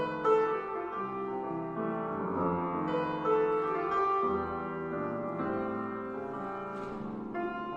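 Acoustic grand piano played solo: chords under a melody, the notes held and ringing into one another.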